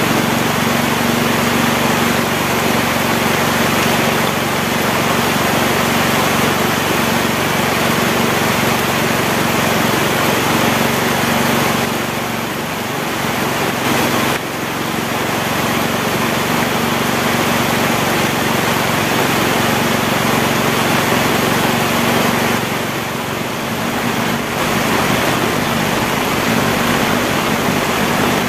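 Heavy rain pouring down steadily, easing slightly twice for a moment, with a steady low hum underneath.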